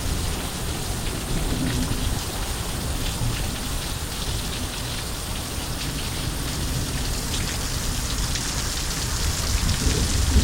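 Heavy rain pouring steadily onto surfaces during a thunderstorm downpour.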